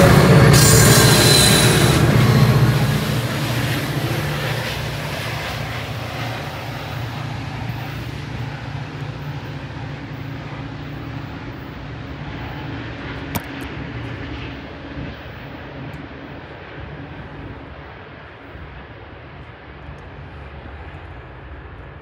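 Metra diesel commuter train moving away, its rail noise and steady low engine drone loud at first, then fading slowly. A single sharp click comes about 13 seconds in.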